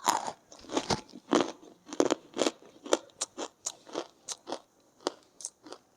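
Close-up crunching of pink Nakumat edible clay being bitten and chewed, in a quick, irregular series of crisp crunches.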